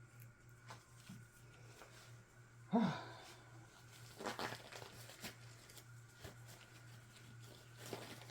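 Faint handling sounds at a work table: scattered light clicks and rustling, over a steady low hum. About three seconds in there is a brief pitched sound that falls slightly, the loudest moment.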